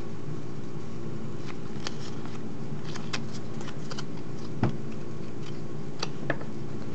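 Pokémon trading cards being handled and flipped through by hand, making a scatter of light clicks and flicks of card stock, the sharpest a little past halfway. A steady low electrical hum runs underneath.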